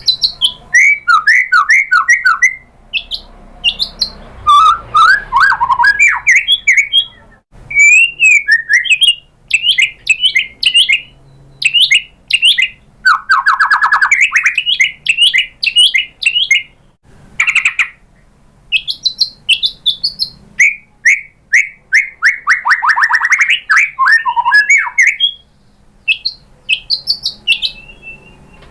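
White-rumped shama singing a loud, varied song: rapid runs of short sweeping notes and trills in phrases of several seconds, broken by brief pauses, and softer near the end.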